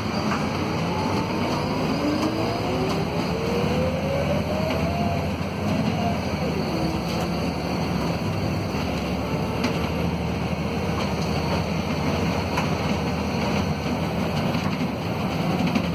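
Volvo D7C six-cylinder diesel of a Volvo B7RLE city bus, heard from inside the passenger cabin, running under load over road noise. A whine climbs steadily in pitch for a few seconds, drops about halfway through, then holds at a steady pitch.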